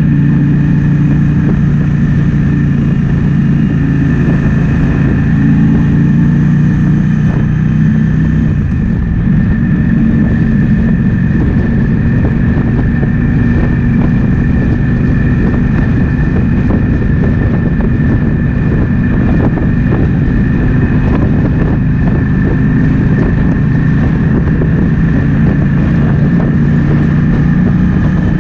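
Triumph Speed Twin 1200's parallel-twin engine running while the motorcycle is ridden, with wind buffeting the microphone. About eight seconds in the engine note changes and the wind noise takes over, and the engine note comes through more strongly again in the last few seconds.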